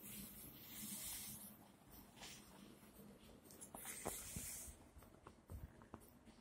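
Faint rustling and scratching, swelling twice, with a few light clicks in the middle: handling noise from the recording device as it is swung around.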